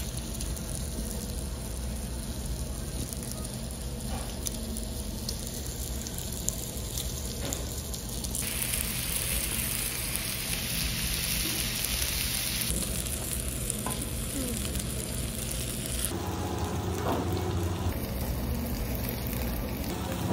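Pork belly sizzling and frying on a hot stone griddle plate, a steady hiss that grows brighter and louder for a few seconds in the middle.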